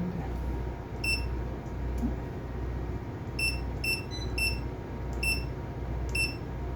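Key-press beeps from the AIS unit's keypad as its buttons are pressed: about eight short, high beeps at uneven spacing, over a low steady hum.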